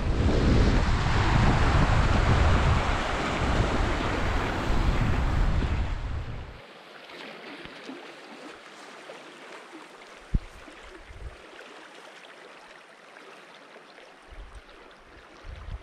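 Shallow river rushing over gravel riffles, with wind buffeting the microphone. About six and a half seconds in it drops abruptly to a faint steady hiss, with a single small tick a few seconds later.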